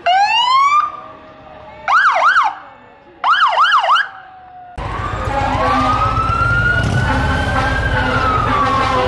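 Police car electronic siren blipped in short bursts: a quick rising whoop at the start, then two brief bursts of fast up-and-down yelping about 2 and 3.5 seconds in. From about 5 seconds a siren wails once, slowly rising and then falling, over a steady low rumble.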